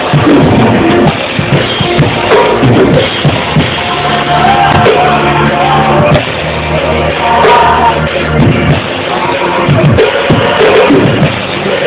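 Loud band music with a drum kit and singing, sounding thin and dull with nothing above the mid treble.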